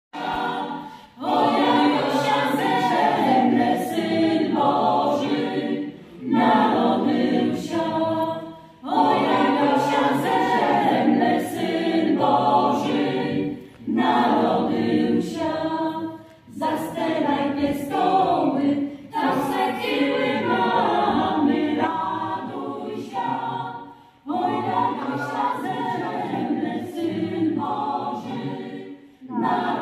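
Choir singing a cappella, in phrases of a few seconds each with short breaths between them.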